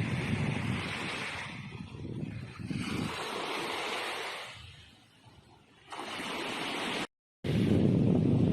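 Waves washing on a beach with wind buffeting the microphone; the sound fades low about five seconds in, then returns and cuts out for a moment near the end.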